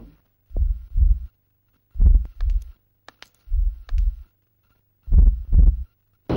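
Heartbeat sound effect: four deep double thumps, lub-dub, about one and a half seconds apart, over a faint low hum.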